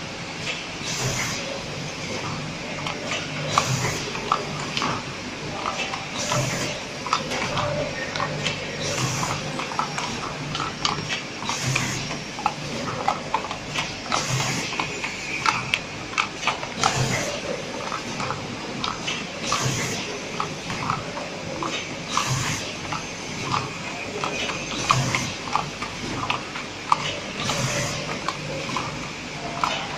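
Automatic packaging machine running: a steady mechanical clatter of many small clicks, with a short hiss about every two and a half seconds as it cycles.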